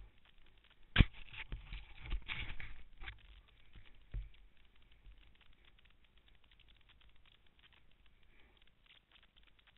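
A sharp knock about a second in, followed by a couple of seconds of scuffing and crunching right at a helmet-mounted camera as a snowkiter sitting in the snow moves about. Another knock comes around four seconds, and after that only faint crackling.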